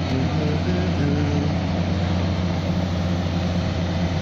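Diesel engines of a Taiwan Railway DR2800-series diesel multiple unit running at the platform with a steady low drone.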